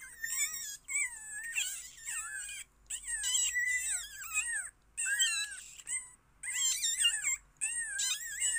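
Several young kittens mewing over and over, their high, wavering calls overlapping almost without a break: hungry kittens competing for food.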